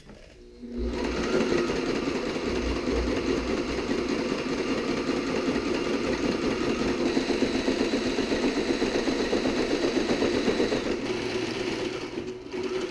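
Sailrite sewing machine running steadily as it stitches a seam through layers of sailcloth. It starts about a second in and stops near the end.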